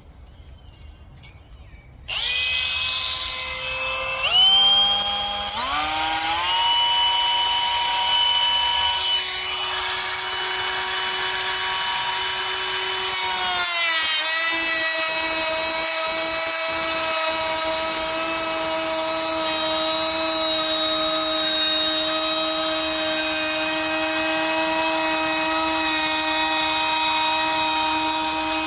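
Cordless 18/20 V trim router started about two seconds in, its whine rising in steps over the next few seconds to a steady high pitch. About halfway through the pitch dips a little and holds lower, as the bit takes load cutting a chamfer along a wooden edge.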